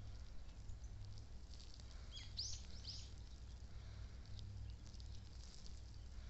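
Faint outdoor field ambience: a steady low rumble with a few short bird chirps about two and a half seconds in.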